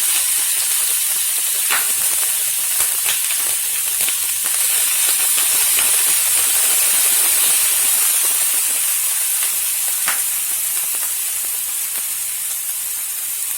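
Small pieces of boneless chicken frying in hot oil in a pan: a loud, steady sizzle with a few sharp pops.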